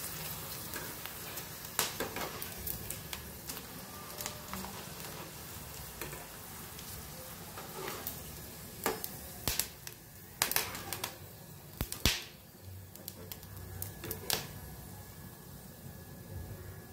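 Sabudana papad frying in hot oil in a metal kadhai: a steady sizzle, with scattered sharp clicks of a metal slotted spoon against the pan, bunched in the middle as the puffed papad is turned and lifted out.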